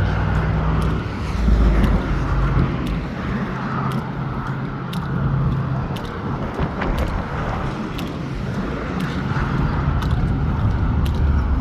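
Interstate highway traffic passing on the bridge: a steady wash of tyre and engine noise with a low hum, and a heavier vehicle rumbling by about a second and a half in and again near the end.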